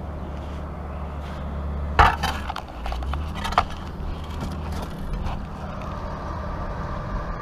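Engine of an earth-moving machine working the beach, running with a steady low drone that shifts pitch about three seconds in and again near five seconds. A loud clatter about two seconds in and a sharp knock a second and a half later.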